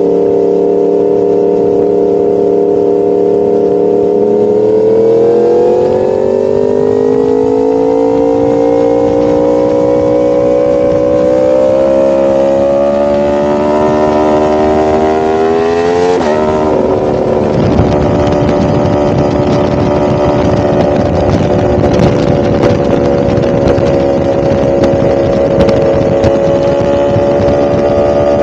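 A 1000cc motorcycle engine running under way. Its pitch climbs slowly for about twelve seconds as the bike accelerates, drops sharply about sixteen seconds in, then holds steady with more rushing noise mixed in.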